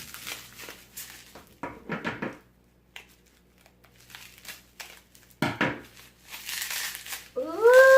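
Mail packaging crinkling and rustling as it is handled and unwrapped, in irregular crackles with a sharper crackle about five and a half seconds in. Near the end a girl's long 'ooh' rises and falls.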